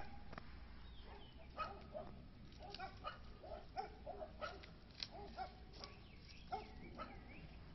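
Faint dog barking: about a dozen short yaps at irregular intervals.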